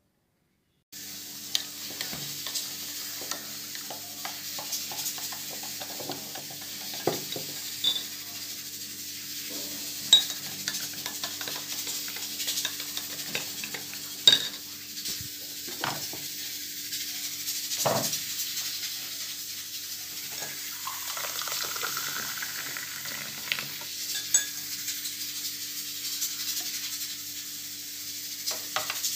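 A metal spoon stirring milk in a glass, clinking sharply against the glass again and again over a steady background hum.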